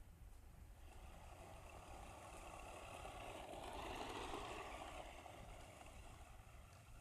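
Radio-controlled truck's motor running faintly with a whine, growing louder toward the middle and fading again.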